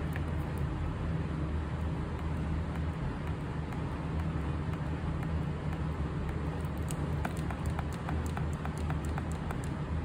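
A steady low hum, with a quick run of light clicks in the last few seconds: the buttons of a Daikin wired air-conditioner remote controller being pressed repeatedly to step the date setting.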